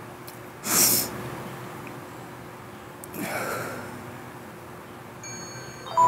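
A short, sharp breath through the nose close to a phone's microphone, a sniff or snort, about a second in, then a softer breathy exhale like a sigh about three seconds in.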